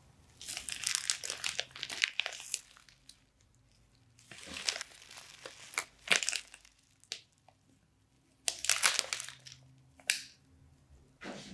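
Plastic bag crinkling and sponge slime crackling and popping as a hand squeezes a slime-soaked mesh sponge inside the bag. It comes in several crackly bursts with short pauses between them.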